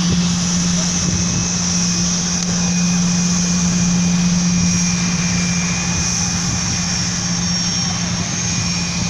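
A small aircraft's engines run steadily ahead of its takeoff run: a constant low drone with a thin high-pitched whine over it.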